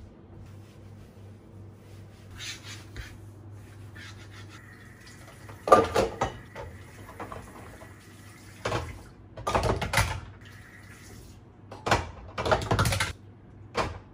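Dishes and utensils clinking and clattering as they are handled at a kitchen sink and set into a wire dish rack: a few scattered bursts, the loudest about six seconds in, over a steady low hum.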